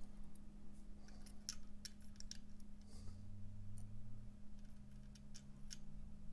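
Light, irregular clicks and ticks of steel tweezers and small plastic gears being handled and set into the plastic case of a quartz clock movement, over a faint steady low hum.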